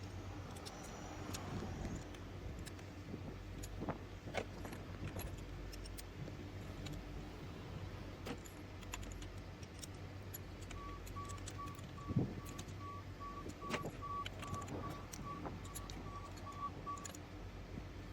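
Spark plugs being fitted and tightened with a socket wrench: scattered metal clinks and light clicks of the tools, over a faint steady hum. In the second half a faint short beep repeats about twice a second for several seconds.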